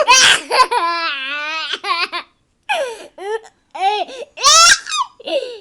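A young child's high voice singing without words in a sing-song way, with a long wavering held note and short gliding phrases, broken by two shrill, louder outbursts near the start and about four and a half seconds in.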